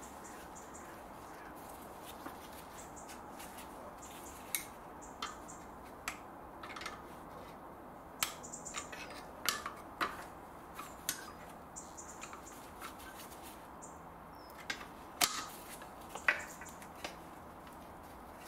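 Irregular light clicks and knocks of a screwdriver and hammer against the aircon condenser's pipe fitting and a sensor's plastic plug as it is pried to unplug it. A few short high squeaks come in between.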